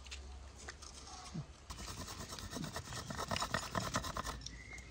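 Metal hand grater rasping in a quick run of even strokes as something is grated on it. The strokes start about two seconds in and stop shortly before the end.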